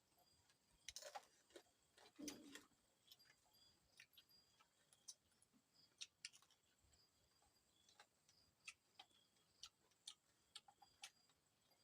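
Faint, irregular clicks and crunches of someone chewing crispy fried insects, a little louder about one and two seconds in.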